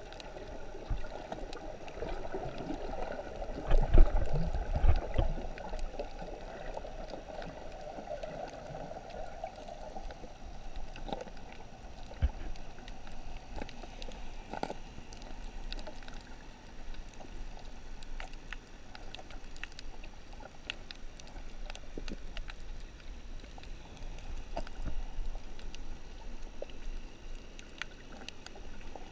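Underwater sound picked up through a GoPro's waterproof housing while swimming over a reef: a muffled water rush that fades after about ten seconds, with scattered faint clicks and crackles throughout and a few dull low thumps about four seconds in.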